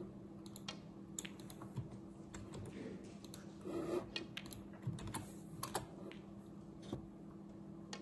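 Scattered sharp clicks, irregular and at times several a second, over a steady low hum.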